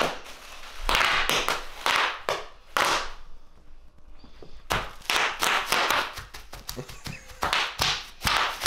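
Bubble wrap crinkling and popping under a toddler's bare feet as he stomps and jumps on it: bursts of plastic rustle with sharp pops, about one a second, with a short lull about three seconds in.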